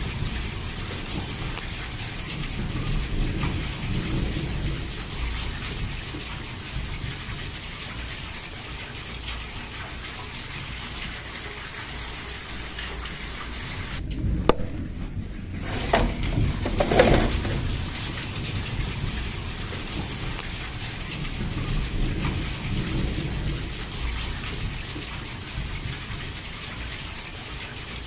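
Heavy rain pouring down in a steady hiss, with low rolls of thunder swelling up several times.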